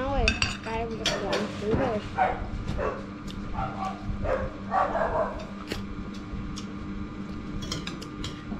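Metal spoons clinking and scraping against ceramic bowls as people eat, with short bits of talk and voice sounds in the first half.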